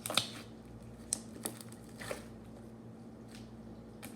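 Slime being worked by hand, with a scattering of sharp little pops and clicks as tiny air bubbles in it burst, about half a dozen at irregular intervals.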